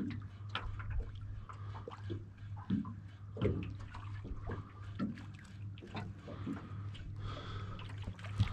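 Small wavelets lapping and sloshing irregularly against a small boat's hull, with a steady low hum underneath.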